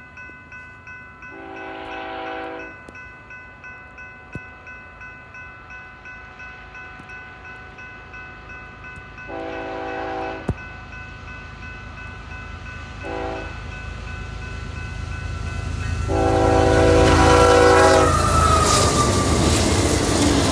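A BNSF freight locomotive's air horn sounding the grade-crossing signal of long, long, short, long blasts while a crossing bell rings steadily at about two strokes a second. With the last long blast the train arrives and its loud rumble and wheel noise take over near the end.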